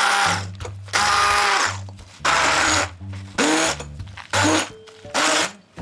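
Immersion hand blender run in short on-off bursts, about six of them, each half a second to a second long, as it purées cottage cheese with frozen strawberries and sugar in a glass bowl.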